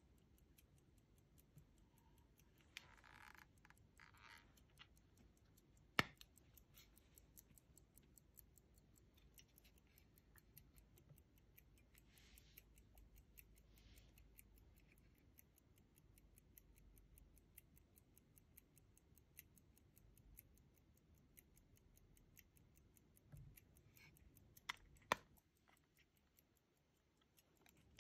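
A Henry Courvoisier detached-lever pocket watch ticking faintly, in rapid, even beats. There are a few sharp clicks as its gold case is handled, one about six seconds in and two near the end.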